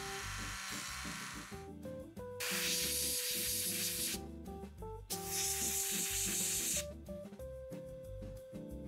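Small rotary tool with a polishing wheel running as it buffs the carbon resistor track of a volume potentiometer, for about the first two seconds. Then come two hissing bursts, each under two seconds long, over background music.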